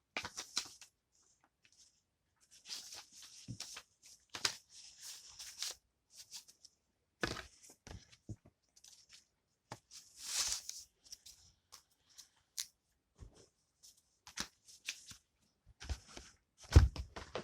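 Paper and cardboard software packaging being handled, rustling and crinkling in short bursts, with scattered light clicks and taps and a knock near the end.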